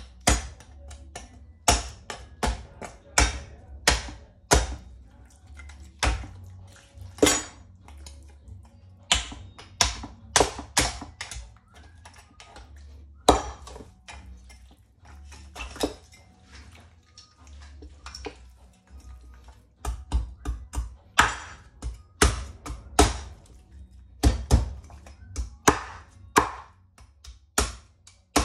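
Chinese cleaver chopping through a raw duck's bones and into the cutting board: dozens of sharp chops at irregular spacing, some in quick runs of several strokes, with short pauses between.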